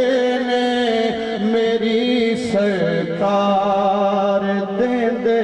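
A naat sung in Punjabi, the voice drawing out long held notes that bend slowly in pitch, without clear words.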